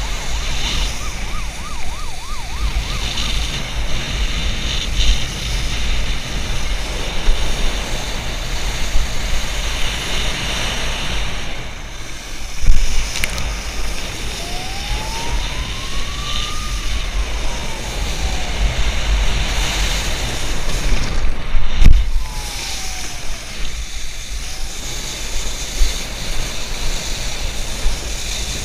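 Wakeboard planing across a lake, its spray hissing steadily, with strong wind buffeting the body-mounted camera's microphone. Two sharp knocks about thirteen and twenty-two seconds in are the loudest moments. In the second half a faint whine rises and falls in pitch twice.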